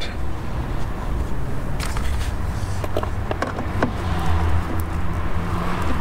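A motor vehicle engine running steadily with a low hum, with a few light clicks and taps scattered through.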